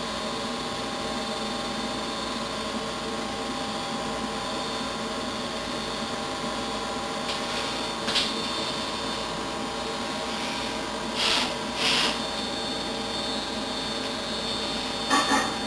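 A steady machine hum with several fixed tones. Over it come short hissing bursts of forceful breath from a lifter under a heavy barbell squat, about eight, eleven and twelve seconds in, and a louder straining burst near the end as he works through the squat.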